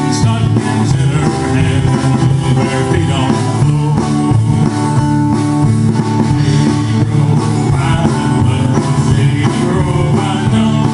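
A live acoustic band playing a song: strummed acoustic guitars over a plucked upright bass, with a steady beat.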